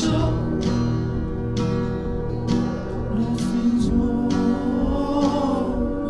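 Background music: acoustic guitar with a singing voice.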